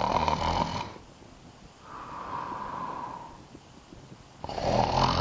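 A person snoring: loud rasping breaths, one for about the first second, a fainter one in the middle, and a louder buzzing one starting near the end. In a long wait, it is most likely a mock snore of boredom.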